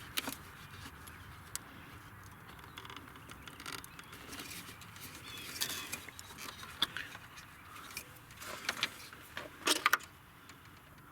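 Scattered clicks, taps and scraping of plastic clips and wire-harness connectors being worked loose by hand, with a cluster of sharper clicks near the end.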